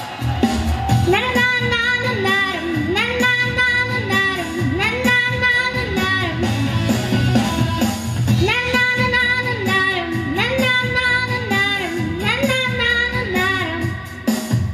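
A young girl singing through a handheld microphone, sung phrases of held, gliding notes over instrumental accompaniment.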